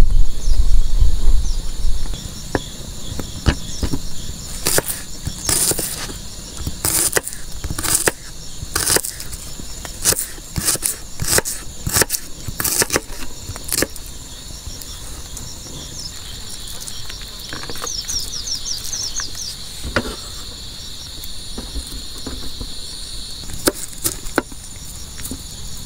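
Crickets and other insects chirring steadily. In the first half, a string of sharp clicks and knocks from handling something close by, and a low rumble in the first two seconds.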